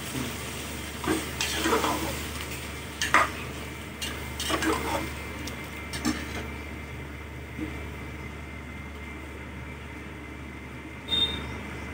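Steel ladle scraping and stirring chicken, onion and tomato frying in a pressure cooker, over a steady sizzle. The strokes come every second or so and stop about two-thirds of the way through, leaving the sizzle, with a brief clink near the end.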